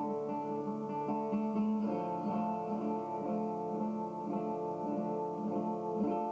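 Acoustic guitar played fingerstyle in a live instrumental piece: a steady run of plucked notes, a little over two a second, over strings left ringing.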